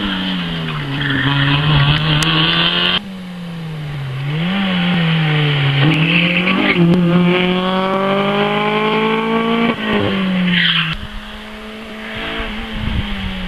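Rally car engine driven hard through a tyre chicane. Its pitch climbs under acceleration, dips sharply as the driver lifts, then climbs again, with brief tyre squeal in the turns. The sound changes abruptly about three seconds in, and the engine note falls away near the end.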